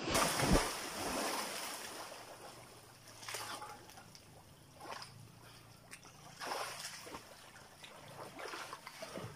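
A person diving headfirst into a river with a loud splash and the churn of water dying away, followed by a few splashes of swimming strokes every second or two.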